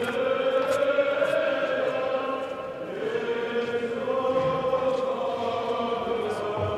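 Liturgical choir chanting a hymn in long, slowly gliding held notes.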